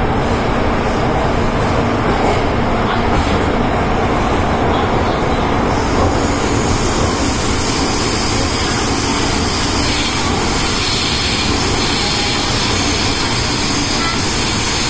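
MTR M-Train heard from inside the carriage while it runs between stations: a loud, steady rumble of wheels and running gear, with more hiss coming in about six seconds in.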